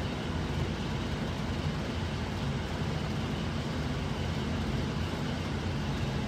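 Propane-fired Amana furnace running with its burners lit and its newly replaced blower motor on: a steady low hum and rush of air.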